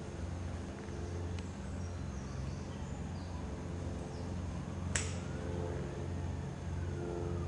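Steady low outdoor background hum, with a single sharp click about five seconds in.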